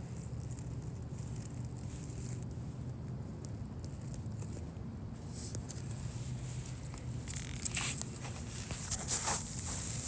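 Light rustling and crackling over a steady low hum, growing louder with several sharper crackles in the last few seconds.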